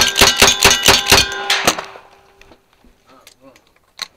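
Lever-action rifle firing a fast string of shots at steel targets, each shot followed by the ringing of struck steel; the string stops about one and a half seconds in. Two sharp clicks follow near the end.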